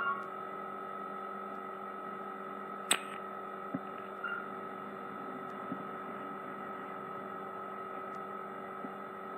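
Steady electrical hum with a fixed whine, with one sharp click about three seconds in and a few faint small knocks.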